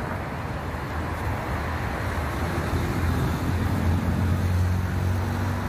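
Road traffic on a wet road: steady tyre and engine noise, with a low engine hum that grows stronger about halfway through as a vehicle passes.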